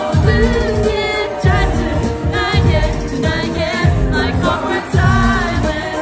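K-pop group performing live: sung vocals over a loud backing track with a strong bass beat.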